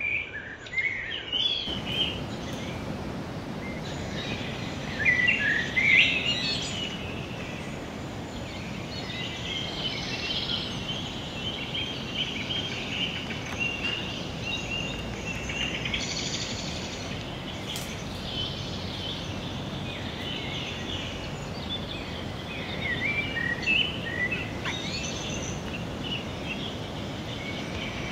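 Outdoor ambience of high-pitched chirping animal calls in scattered clusters over a steady background hiss, the loudest calls about five to six seconds in.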